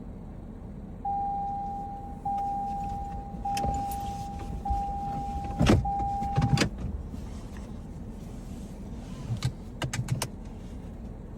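A car's warning chime sounding steadily in about five repeats of a second each, stopping with a couple of heavy thumps; a few clicks and knocks follow over a low, steady rumble.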